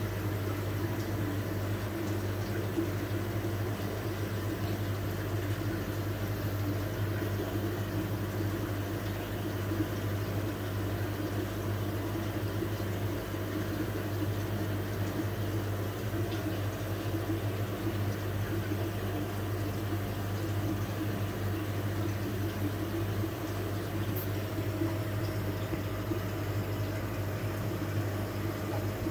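Air-driven aquarium sponge filter bubbling steadily, with a low steady hum underneath.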